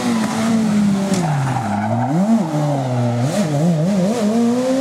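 World Rally Car's 1.6-litre turbocharged four-cylinder engine on a rally stage. The revs sink for a moment, rise and fall quickly several times from about two seconds in, then climb and hold steady near the end.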